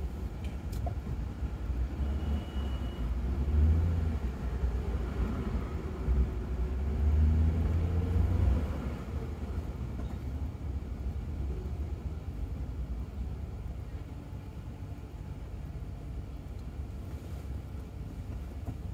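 Low rumble of road and traffic noise heard from inside a moving Ford Crown Victoria. It swells twice in the first half and eases off after about ten seconds.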